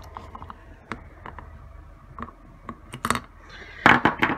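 Irregular light clicks and metallic taps from a carburettor body and small tools being handled, with a few louder knocks about three seconds in and again near the end.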